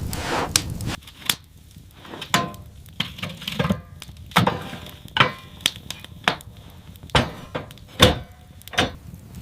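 A rustling swish, then a series of about ten sharp, irregularly spaced knocks, some with a short ringing tail.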